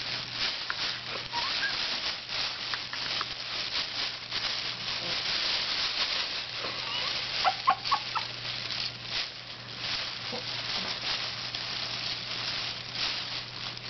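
Black plastic bag crinkling and rustling continuously as a baby grabs, pulls and mouths at it, with a few brief high squeals from the baby about halfway through.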